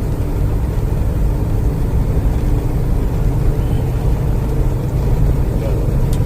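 Semi truck's diesel engine and road noise heard from inside the cab while driving, a steady low rumble.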